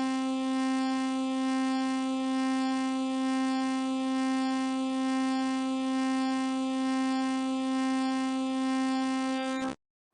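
Emergency alert tone played in reverse: one steady, buzzy electronic tone held for nearly ten seconds, which cuts off suddenly near the end.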